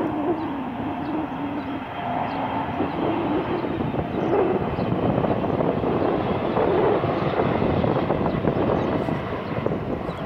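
Airbus A380-800's four jet engines droning as the airliner flies over on landing approach: a steady broad rumble with a wavering hum in the first few seconds.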